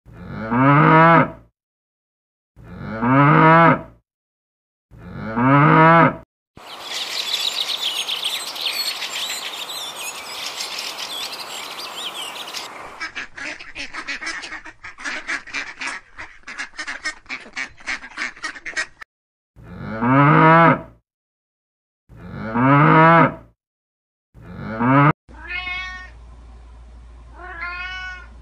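Cattle mooing three times, then a stretch of ducks calling, first in a dense jumble and then as quick repeated calls. Two more moos follow, and near the end a domestic cat meows twice.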